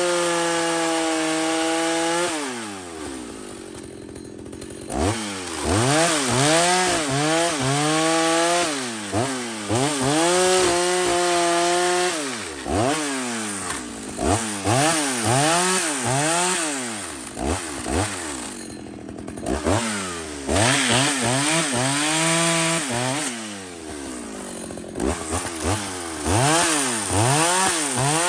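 Two-stroke chainsaw engine revved over and over, its pitch climbing and falling with each throttle blip. It holds steady at high revs for a couple of seconds at a time, and drops back toward idle briefly a few times.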